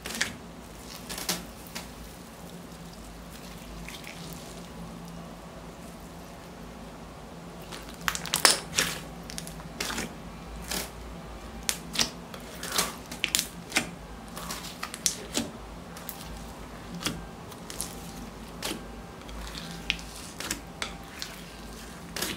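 Clear glitter-filled slime being squeezed and folded by hand, giving sticky clicks and pops. They come sparsely at first, pause for several seconds, then come thick and fast from about a third of the way in.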